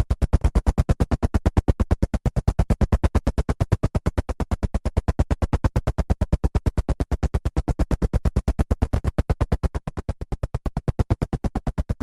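Helicopter rotor chop: a steady rapid beat of about seven thumps a second, easing slightly after about nine seconds.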